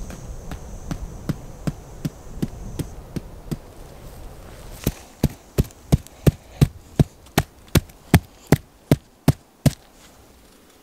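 A tarp stake being hammered into the ground: a long run of even knocks, about two and a half a second, fainter at first and louder from about halfway, stopping shortly before the end.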